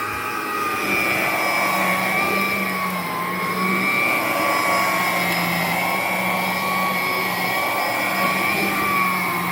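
Electrolux Discovery 3 upright vacuum cleaner, a 1987–88 model, running steadily: an even motor whine over a rush of air, its pitch wavering slightly. The machine is running well.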